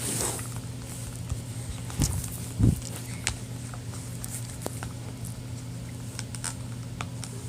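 Stirring white glue in a bowl with a small mixing tool: scattered light clicks and scrapes of the tool against the bowl, with two dull thumps about two seconds in. A steady low hum runs underneath.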